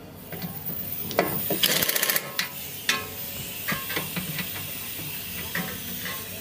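Pneumatic air ratchet working a nut on a car's front suspension, with a rapid rattling burst about two seconds in and then single clicks, over a steady hiss of compressed air.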